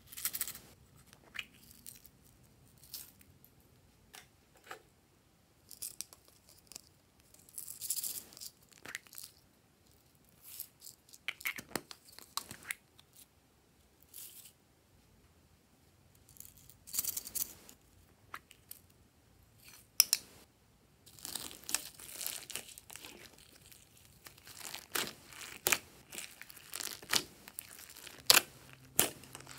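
Hands working slime in a glass bowl: scattered short rustles and clicks at first as sequins and other toppings are added, then, about two-thirds of the way through, a dense run of sticky crackling and squelching as the slime is pressed and kneaded.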